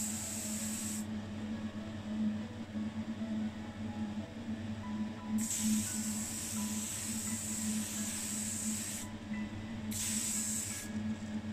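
Primer spray hissing in three bursts: a short one at the start, a long one of several seconds midway, and a short one near the end. Background music plays under it.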